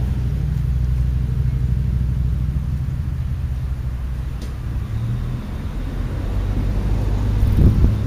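Cars passing on the street: a steady low engine and tyre rumble, with another car coming through louder near the end.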